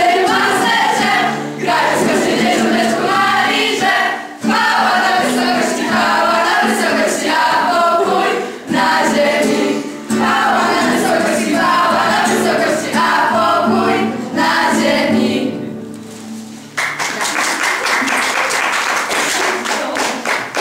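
A group of children singing a song together to an acoustic guitar, in phrases with short breaks. Near the end the singing stops and applause and clapping take over.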